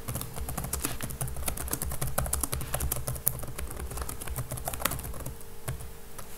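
Typing on a computer keyboard: a quick, uneven run of key clicks, with a faint steady hum underneath.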